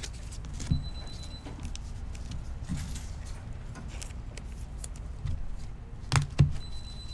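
Low steady background hum with a few soft knocks and clicks, the loudest a quick pair about six seconds in.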